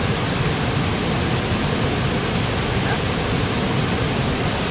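Steady rushing of a waterfall, an even roar of falling water with no breaks.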